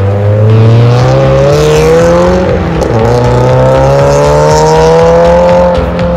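Scion FR-S's 2.0-litre flat-four engine accelerating hard: its pitch climbs through one gear, dips briefly at a shift about two and a half seconds in, then climbs again through the next gear before easing off near the end.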